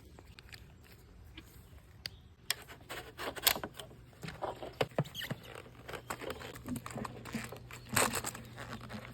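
Portable pool vacuum's small motor humming low and steady from about two and a half seconds in, under irregular clicks and knocks from handling it.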